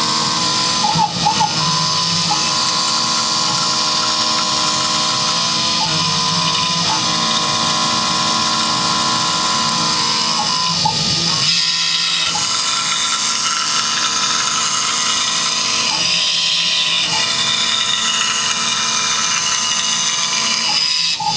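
Small CNC milling machine running a program: the spindle whines steadily with several held tones while the cutter machines plastic. The mix of tones shifts about halfway through as the toolpath changes.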